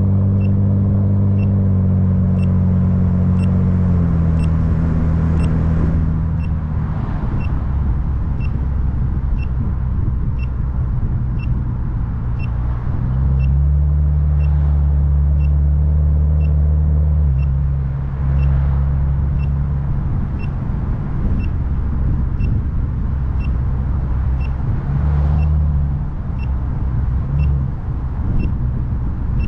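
Car driving, heard from inside: a low engine and road drone that shifts pitch a few times, with a short high-pitched beep repeating about once a second throughout.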